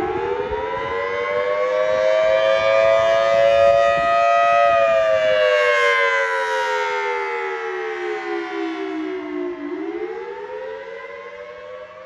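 Federal Signal Thunderbolt 1000T tornado siren sounding a test wail, two close pitches together. The pitch rises for about four seconds, falls for about five, and begins to rise again near the end.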